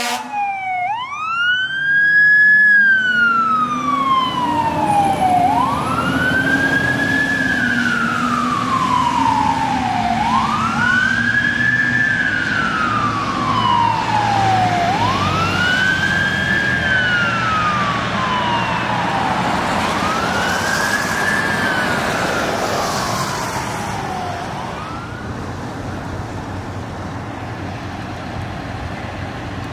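Fire engine siren sounding a wail: each cycle rises quickly to a high pitch and falls slowly, about one every four and a half seconds. It fades as the truck drives off and stops about 25 seconds in, leaving street traffic noise.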